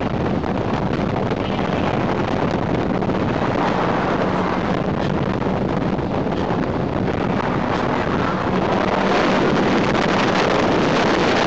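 Motorboat running at speed, its engine a steady drone under the rush of water from the wake and wind buffeting the microphone.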